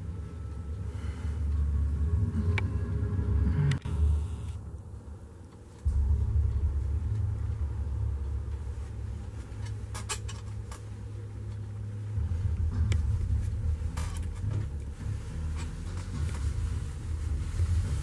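Wind buffeting the camera microphone, a low rumble that surges and drops unevenly, with a few sharp clicks.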